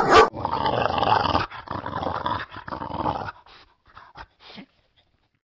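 A dog's voice: a loud, sharp sound right at the start, then a rough growl for about three seconds that breaks into short, fading bits and stops about five seconds in.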